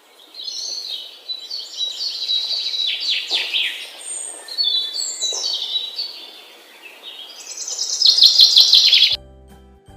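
Songbirds chirping and twittering in quick, high calls, with a dense rapid run of chirps near the end that cuts off abruptly. Faint music with a steady tone comes in right after.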